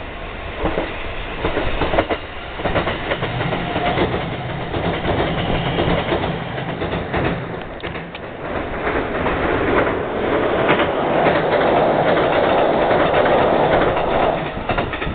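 Kintetsu electric train running past on the track, its wheels clacking over rail joints with a low motor hum. It grows louder and fuller toward the end.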